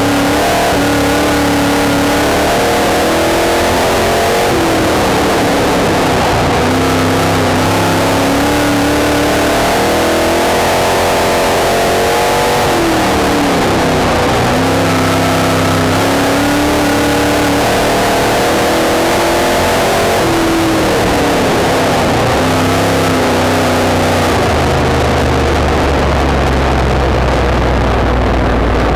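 Pro Stock dirt race car's V8 engine heard from inside the car at racing speed. The revs dip and climb back about every 8 seconds as the driver lifts for each corner and gets back on the throttle, then drop to low revs near the end as the car slows.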